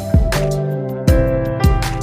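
Background music: held instrumental notes over a drum beat.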